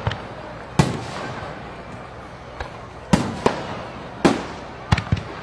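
Fireworks going off: seven or eight sharp bangs at irregular intervals, each trailing off in a short echo.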